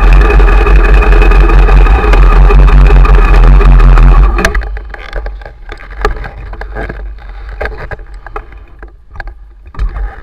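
Ducati Monster 1100 EVO's air-cooled L-twin idling loudly, then cut off about four seconds in. Scattered faint clicks and knocks follow.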